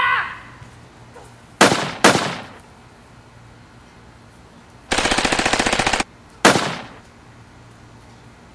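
Gunfire sound effects: two single shots about half a second apart, then a rapid machine-gun burst lasting about a second, then one more single shot.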